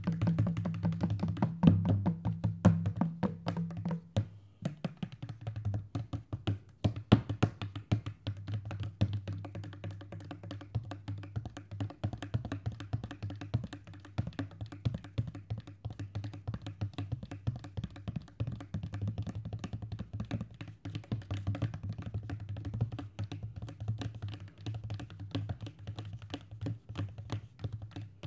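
Hand drums (madal and tabla) played in rapid, dense strokes over a steady low hum. A second, higher hum drops out about four seconds in.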